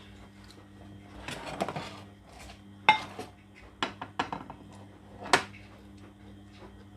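Dishes and cutlery clinking and knocking: a handful of sharp clicks over a few seconds, one of them with a short ring.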